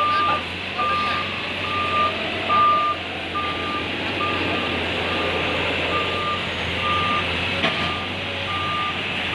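Komatsu excavator's travel alarm beeping steadily, about one beep every 0.8 seconds, over its running diesel engine as it works in deep mud, with a single sharp click near the end.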